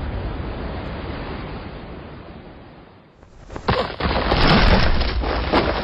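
Animated-fight sound effects: a steady rushing, wind-like noise fades away over about three seconds, then a sudden loud crash of breaking rock with crackling debris as a body smashes through a stone pillar.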